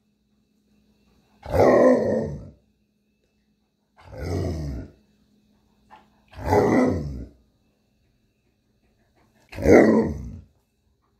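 Alaskan Malamute 'talking': four drawn-out vocal calls, each about a second long with pauses between them, the second one quieter than the rest.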